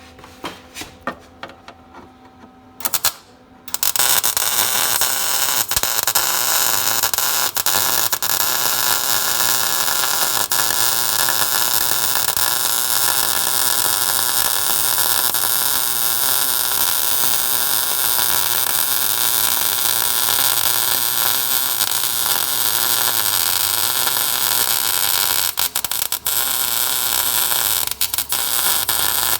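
Welding arc crackling and hissing steadily on automotive sheet metal and frame rail. A short weld about three seconds in, then a long continuous bead from about four seconds, with a couple of brief breaks near the end before it stops sharply.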